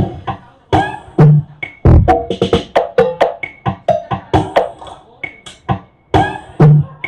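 Percussive dance music played loud through a stacked mobile PA speaker system driven by a DIY class G power amplifier during a soundcheck. Sharp hits come several times a second, with a few deep bass thumps.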